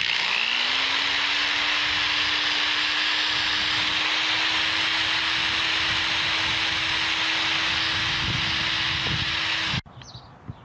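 Electric drill boring into a wooden board: the motor spins up at the start, runs at a steady pitch, and cuts off suddenly near the end.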